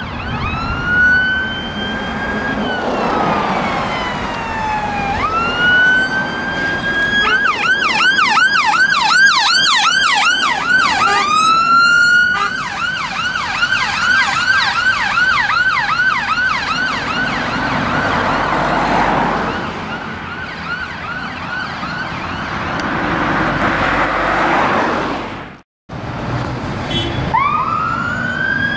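Fiat Ducato ambulance siren sounding as it passes, over engine and road noise. It wails slowly up and down, switches to a fast yelp about seven seconds in and keeps yelping for well over ten seconds. Near the end, after a cut, a fire engine's siren starts a new slow wail as the fire engine turns out.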